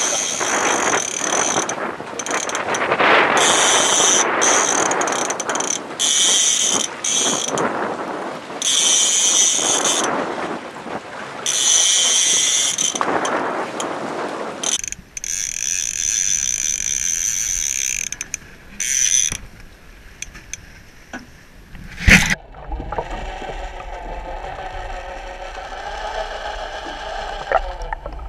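A fishing reel's drag ratchets and whines in repeated bursts of a second or two as a hooked halibut pulls line off against the bent rod. In the latter part this gives way to the muffled rumble of water heard from an underwater camera, with one sharp knock.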